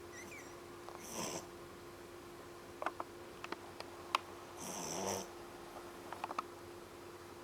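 A sleeping three-month-old puppy snoring. There is a short snore about a second in and a longer one around five seconds in, with a few faint clicks between them.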